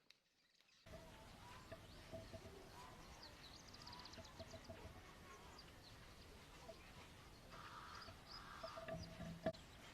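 Near silence for under a second, then faint background ambience: a steady hiss with scattered faint bird chirps, and a single sharp click near the end.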